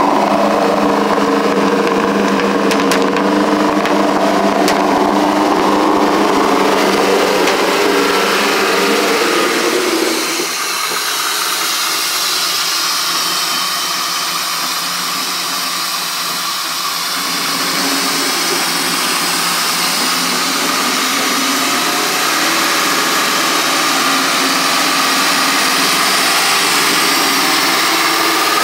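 A 1991 GMC stepside pickup's engine running steadily, first heard as a low, even exhaust note from the dual exhaust tips. About ten seconds in the deep exhaust sound drops away and a higher whir from the open engine bay takes over.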